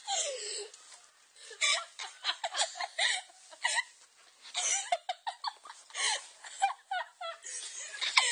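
Laughter and giggling in short, repeated bursts.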